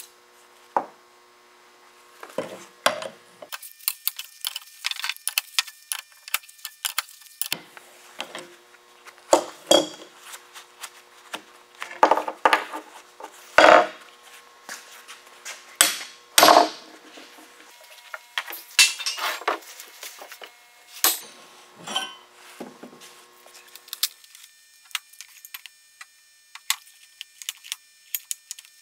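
Irregular clanks, knocks and clinks of heavy iron post-vise parts and wrenches handled on a wooden workbench as the old blacksmith's vise is taken apart for cleaning, with two louder knocks in the middle.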